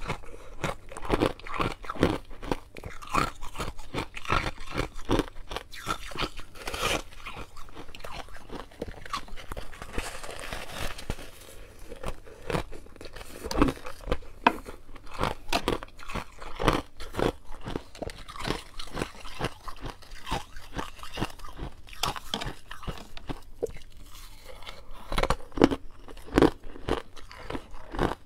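Soft freezer frost being bitten and chewed: a dense, irregular run of crunches and crackles.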